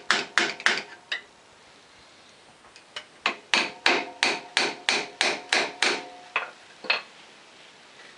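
Hammer blows on the splined end of a Yamaha G29 golf cart's steel rear axle shaft, each with a short metallic ring. A quick group of about five blows comes first, then after a pause a steady run of about a dozen blows, roughly three a second.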